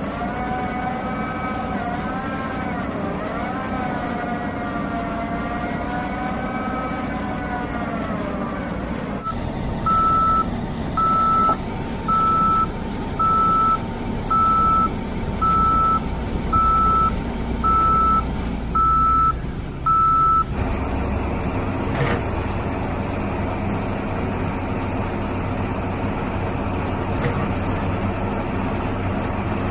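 A heavy piling rig's diesel engine runs throughout. For the first third a wavering tone sounds over it. Then a travel alarm gives about ten evenly spaced beeps, roughly one a second, and stops about two-thirds of the way through, leaving the engine running with a single click.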